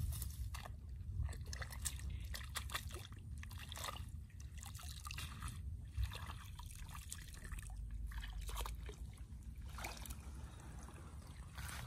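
Shallow paddy water splashing, sloshing and trickling as a woven basket trap is scooped through it and lifted out to drain, with scattered drips and small splashes from wading feet.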